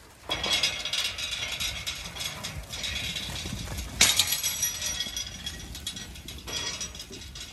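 Old iron field gate rattling and clanking as it is unbolted and swung open, with a metallic ring and a second sharp clank about four seconds in. Hooves of a flock of Zwartbles ewes trample through as they rush out.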